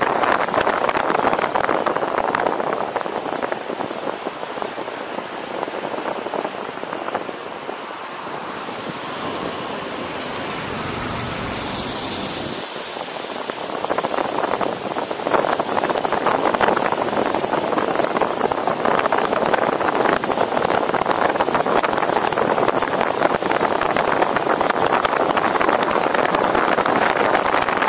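Wind buffeting a roof-mounted camera's microphone on a moving car, mixed with tyre and road noise: a steady rushing that eases for several seconds in the middle, then grows again.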